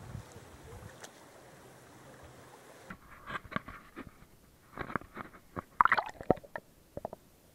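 Faint wind and flowing-water noise, then, about three seconds in, a run of sharp knocks and short splashes as a small camera is handled and dipped into the shallow river, loudest about six seconds in.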